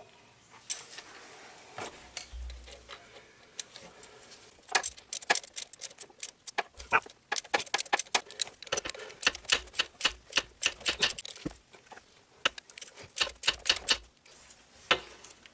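Ratchet wrench clicking in quick runs of strokes as the new A/C compressor clutch bolt is run down and tightened.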